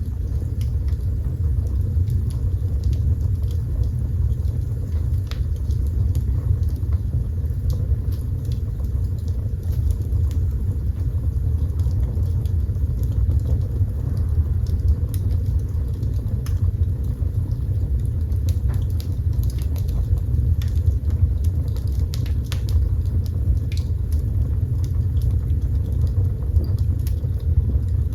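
Fire burning in a fireplace: a steady low rumble of flames with scattered sharp crackles and pops.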